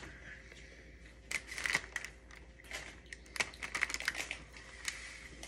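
Caramel coconut cookies being bitten and chewed, heard as scattered clusters of short crisp crunches and clicks.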